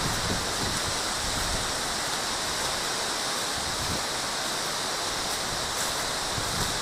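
Steady rush of strong storm wind through the trees' leaves, with low gusts buffeting the microphone near the start and again about four seconds in.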